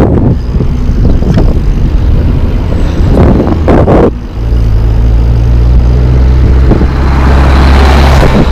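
Wind buffeting the microphone of a chest-mounted action camera on a mountain bike riding along a road. It makes a loud, dense low rumble, with a few sharp knocks in the first four seconds and a rising hiss near the end.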